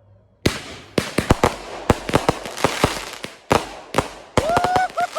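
Small 200-gram consumer firework cake firing, beginning with a sudden loud crack about half a second in and going on in a quick, irregular run of sharp bangs and pops. From about four and a half seconds in, several short whistles sound among the bangs, the last one held and falling in pitch.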